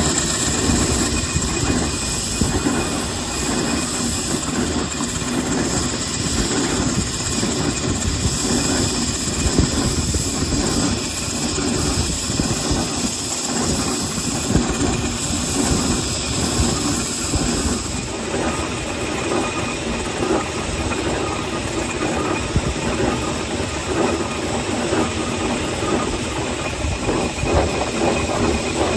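Scale-model steam traction engine running along a road: a fast, continuous chuff of steam exhaust with hissing and the clatter of its motion and iron wheels.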